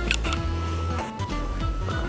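Background music with a steady bass and short melody notes changing pitch.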